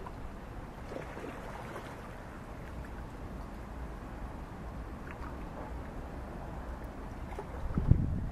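Steady outdoor hiss with wind rumbling on the microphone, and a stronger gust buffeting it near the end.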